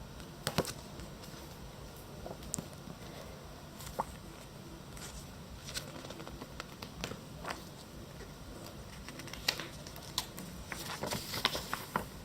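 Paper and plastic items being handled: scattered soft clicks and rustles, coming more often near the end.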